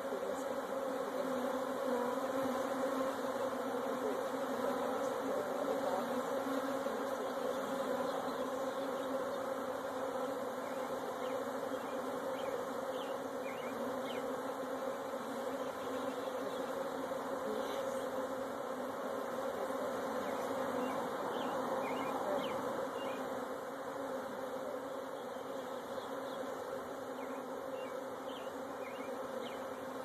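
A large mass of honeybees swarming in the air around their shaken-out package, a steady, dense hum that eases a little over the last few seconds.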